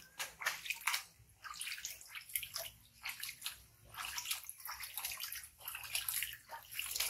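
Water splashing and sloshing in a plastic tub as a hand scoops it up and splashes it over a baby monkey, in many quick, irregular splashes.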